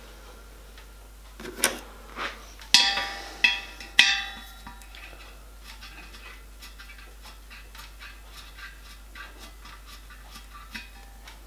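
Small metal clinks: a few light clicks, then three sharp metallic strikes that ring briefly, about three to four seconds in, followed by a long run of faint ticks. These come from copper rivets and steel pliers being handled against a copper boiler plate as the rivets are set into their holes.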